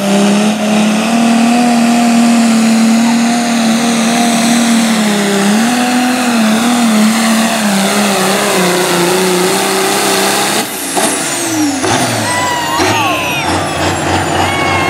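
Super stock pulling tractor's turbocharged diesel engine running flat out under load with a steady, slightly wavering note. About ten and a half seconds in it is throttled back abruptly, and the engine and turbos wind down with falling whistles as the pull ends.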